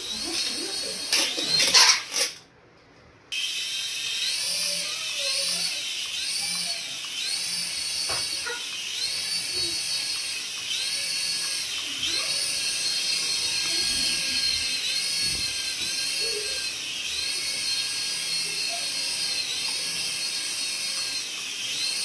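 A battery-powered toy's high-pitched whine that rises and falls about once a second. A few loud clicks come in the first two seconds.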